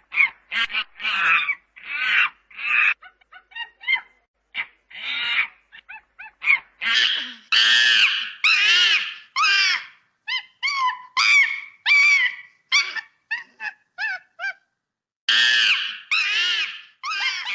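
Monkey calling in a rapid series of short, high, shrill screeches, with a few longer calls near the middle and again near the end.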